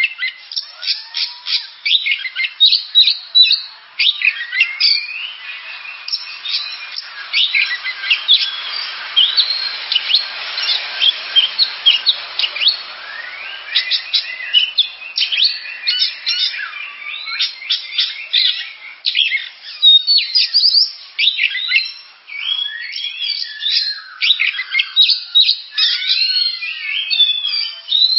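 Oriental magpie-robin (kacer) singing a long, varied song of rapid whistles, chirps and rising and falling glides, with a stretch of hiss behind it about a third of the way in.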